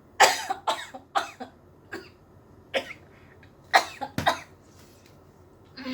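A person coughing in a fit of about eight sharp coughs, the loudest just after the start and about four seconds in, after drawing on a vape for the first time.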